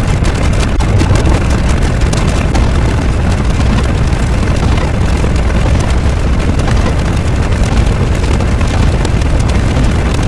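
Loud, steady rumbling roar, heaviest in the low end, with a fine crackle over it and no break.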